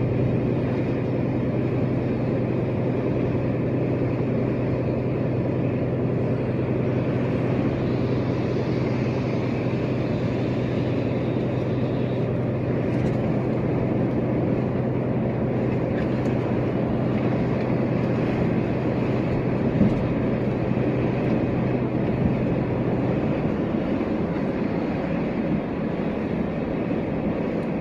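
Inside a truck's cab at motorway speed: the steady drone of the engine over tyre noise on a wet road. The engine's hum drops away about 23 seconds in, leaving mostly road noise.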